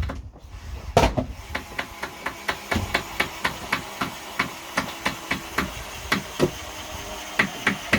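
Hammer blows on wood, struck rapidly and evenly at about four a second, with one heavier blow about a second in.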